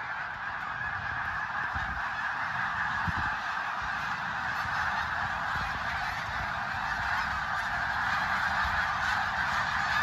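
A huge flock of snow geese calling in flight: a steady, dense din of countless overlapping honks with no single call standing out.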